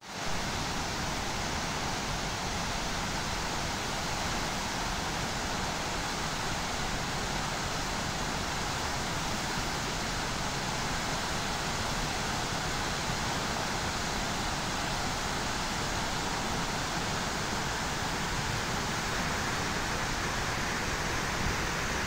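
Large waterfall in heavy flood, the falling water making a steady, even rushing noise with no change in level.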